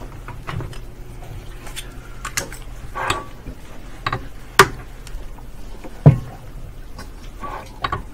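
Glass microscope slides being swapped on the microscope stage: a string of sharp clicks and knocks, the two loudest about four and a half and six seconds in, over a low steady hum.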